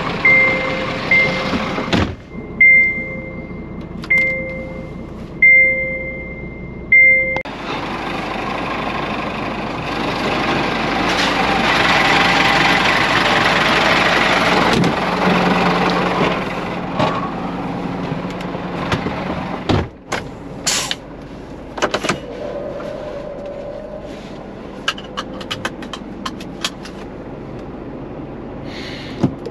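Electronic warning beeper sounding a high tone about once every second and a half for several beeps, then stopping. A steady mechanical hum and hiss follows, the Thermo King refrigeration unit on the trailer running, and near the end a few light clicks.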